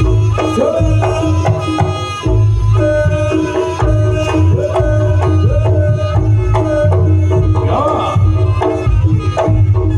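Live East Javanese jaranan ensemble music: kendang hand-drum strokes in a steady rhythm over a sustained low gong tone and a pitched melody with gliding notes.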